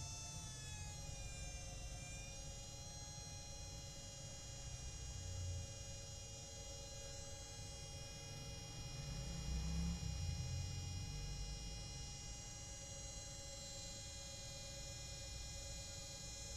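Sharp ES-FL872 front-loading washing machine's brushed drum motor, running on newly fitted carbon brushes, spinning the drum. Its whine with many overtones finishes rising in pitch in the first couple of seconds and then holds steady over a low, uneven rumble that swells about five and ten seconds in.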